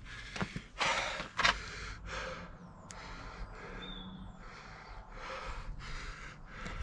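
A person breathing audibly close to the microphone in a series of hissy breaths, with a few small clicks and knocks from handling near it.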